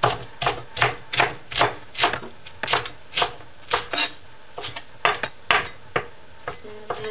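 Large kitchen knife chopping romaine lettuce on a wooden cutting board: a steady run of chops, about two or three a second.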